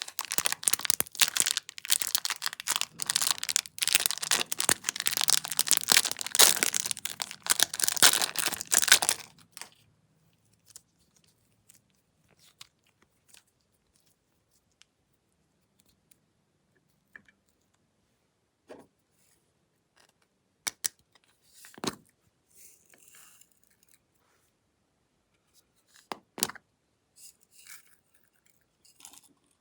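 Glossy slime being squeezed and stretched by hand: a dense run of sticky, crackling clicks for about nine seconds, then only a few scattered clicks.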